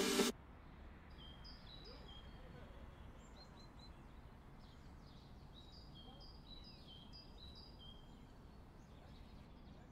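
Faint outdoor ambience with songbirds chirping: a run of short, high chirps over a low, even background noise. Music cuts off right at the start.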